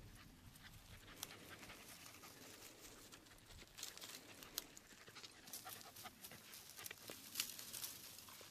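Faint crunching and rustling of steps through dry sagebrush and grass, with panting breath.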